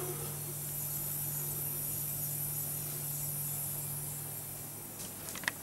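Cold-room refrigeration system running with a steady hiss and a low hum. The installer puts the noise down to an oversized 3/8-inch liquid-line solenoid valve that is not shutting because the port is too big. The hiss fades about five seconds in, followed by a couple of light clicks.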